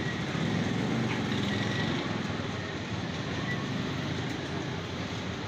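Steady background rumble with no clear rhythm or distinct strikes.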